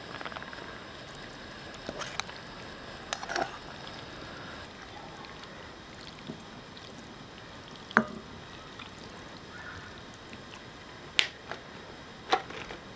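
Metal fork and aluminium pot clinking and scraping against a ceramic plate as pasta is scraped out: a few sharp clinks scattered through, the loudest about eight and eleven seconds in, over a steady low hiss.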